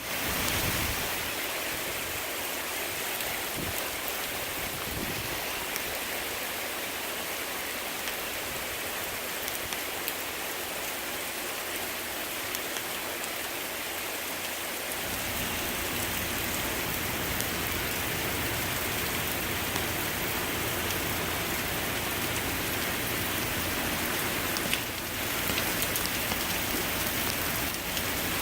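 Heavy rain pouring down, a steady dense hiss with fine scattered drop clicks, getting slightly fuller about halfway through.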